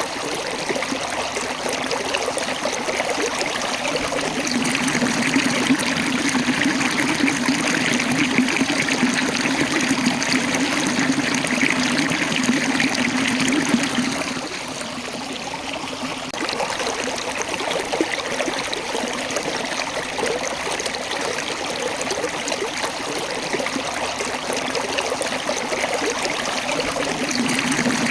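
Water from a small waterfall running and splashing over rocks, a steady rushing with gurgling, dipping slightly about halfway through.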